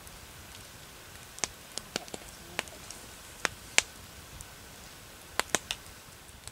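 Wood campfire crackling: a dozen or so sharp pops at irregular intervals over a faint steady hiss.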